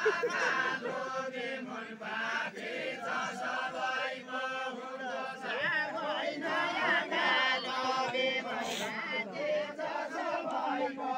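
Group of men singing a Deuda folk song together in a chanted unison line, voices continuous throughout.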